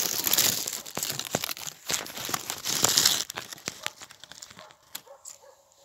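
Dry leaves crackling and oak branches rustling as someone pushes through dense scrub, close and loud for about the first three seconds, then fading to scattered quieter crackles.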